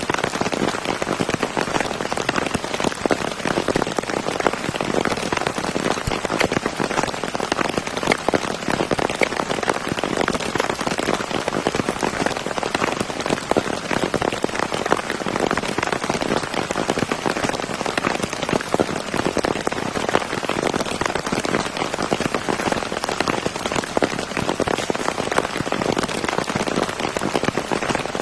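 Heavy tropical downpour falling steadily, a dense hiss of rain made up of countless individual drops pattering.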